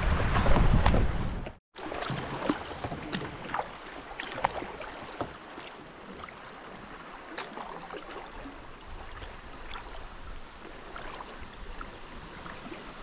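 Wind buffeting the microphone for about a second and a half, cut off suddenly, then quieter lapping water with scattered small splashes and drips around a kayak on a lake.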